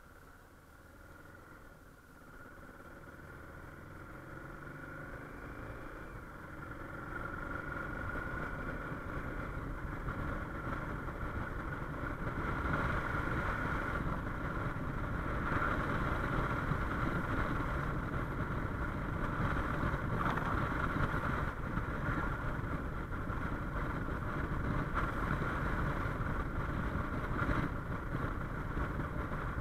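Suzuki XF650 Freewind's single-cylinder engine accelerating away, its pitch rising through the gears over the first several seconds. It then cruises steadily at about 60 km/h, with wind noise on the camera's built-in microphone growing with speed.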